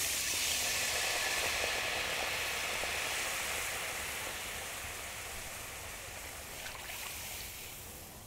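Water poured into a hot cast-iron skillet, hissing and sizzling as it flashes to steam on the hot iron, loudest at first and slowly dying down.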